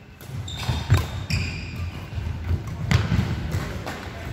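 Badminton rally: two sharp racket strikes on the shuttlecock, about a second in and about three seconds in, with trainers squeaking and footfalls thudding on the wooden sports-hall floor.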